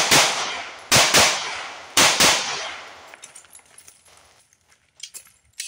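Six 9mm shots from a Walther PPQ SC subcompact pistol, fired as three quick double taps about a second apart, each pair ringing out with a trailing echo.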